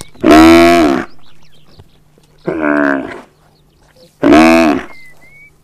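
Wounded wildebeest calling in distress while lions feed on it: three loud, drawn-out moaning calls, each under a second.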